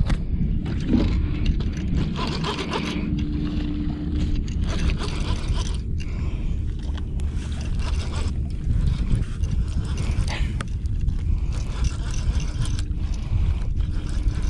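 Baitcasting reel cranked steadily to bring in a hooked catfish: a scraping whir of the gears and line winding on, with many small clicks, over a steady low rumble.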